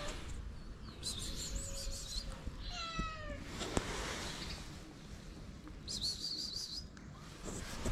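A stray cat meows once about three seconds in, a short call falling in pitch, with a sharp tap just after. High, warbling bird chirps come around a second in and again near six seconds.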